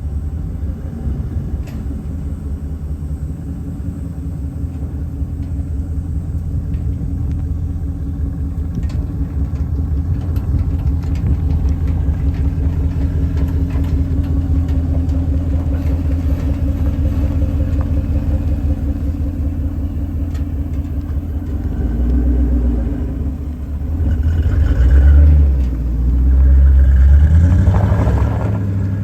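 V8 engine of a Ford F100 running through a newly built dual exhaust with MAC mufflers and an H-pipe: idling with a steady low rumble, then revved several times near the end.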